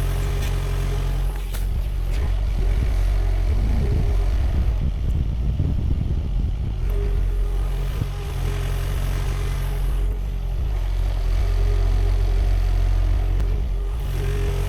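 Sany SY50U mini excavator's diesel engine running steadily under work, its sound growing rougher and heavier between about four and eight seconds in, with a few sharp knocks.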